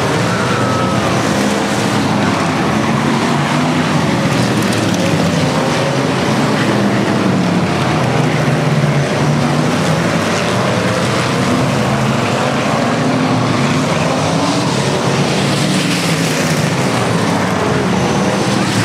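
Several dirt-track sport modified race cars racing around the oval, their V8 engines a loud, continuous drone whose pitch rises and falls as the cars accelerate and lift for the turns.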